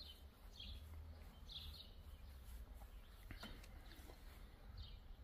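Faint outdoor ambience: short chirps from songbirds, a few at a time with gaps between, over a low steady rumble.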